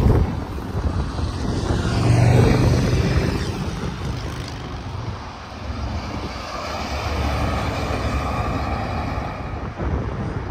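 Tractor-trailers passing on an interstate highway: engine and tyre rumble swells as one goes by about two seconds in, dips, then builds again as more traffic passes in the second half.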